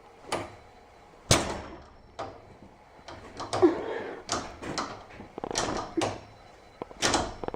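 Irregular sharp clacks and knocks from a garage door opener's trolley and emergency release as the release cord is yanked down and back to set the lockout. The loudest knocks come about a second in and near the end.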